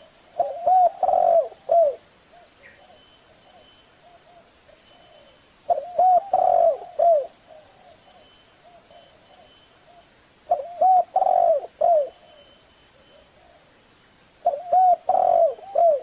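Spotted dove cooing: four phrases of several low coos each, about one every four to five seconds. It is a decoy call used to provoke wild spotted doves and call them in.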